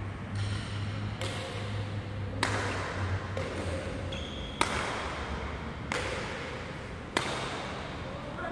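Badminton racket strikes on a shuttlecock during a rally: five sharp hits about a second and a quarter apart, each ringing briefly in a large hall. A steady low hum runs underneath.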